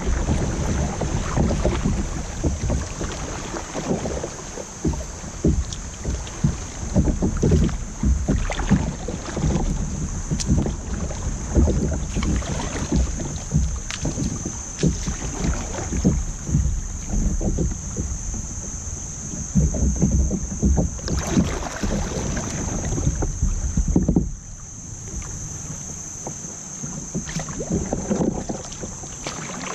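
Rippling river water splashing and gurgling against a plastic kayak's hull as it runs through a riffle, with wind buffeting the bow-mounted microphone. The low rumble and splashing drop off noticeably about three-quarters of the way through as the water calms.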